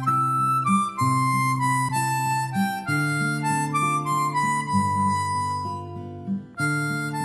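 Background music: an instrumental melody over repeating low chords, with a brief break about six seconds in.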